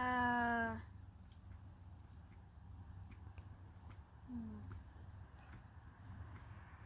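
A drawn-out 'hmm' from someone thinking over a question, then a short falling murmur about four seconds in, over the steady high chirring of insects.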